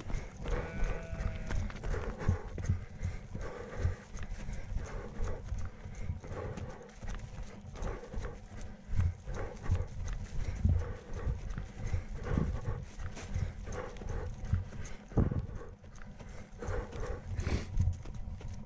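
Running footsteps of Salomon Speedcross 4 trail shoes striking a grassy, stony path in a steady rhythm, over a low rumble of wind on the microphone.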